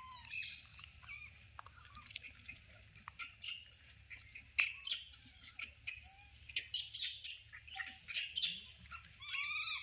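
Short high-pitched chirping calls: one squeak at the start and a quick run of rising-and-falling chirps near the end, with scattered small clicks in between.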